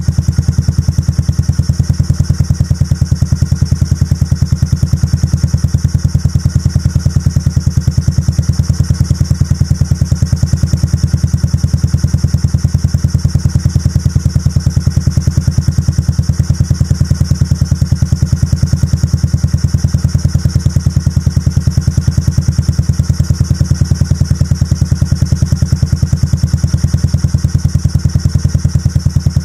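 Honda Forza Z big scooter's 249 cc single-cylinder four-stroke engine idling steadily through Wirus Win twin stainless-steel mufflers: an even run of rapid exhaust pulses, with the ticking intake pulses of its billet-end air-cleaner kit heard as well.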